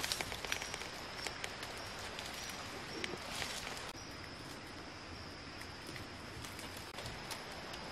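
Quiet forest ambience: a steady high-pitched drone of wildlife, with a few faint clicks and light rustling.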